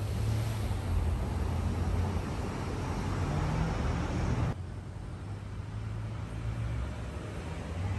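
City street traffic noise: a steady low rumble of road traffic that drops suddenly to a quieter, duller rumble about halfway through.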